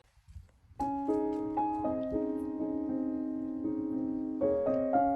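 Background piano music with slow, held notes, starting about a second in after a brief near silence.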